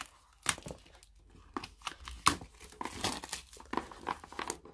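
Plastic shrink-wrap on a boxed card deck being picked at with fingernails and torn open, crinkling in quick, irregular crackles.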